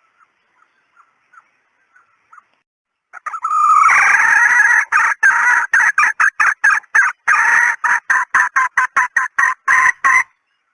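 Red junglefowl hen calling: a few soft, spaced clucks, then from about three seconds in a loud cackle of rapidly repeated notes that grow shorter and quicker before stopping abruptly near the end.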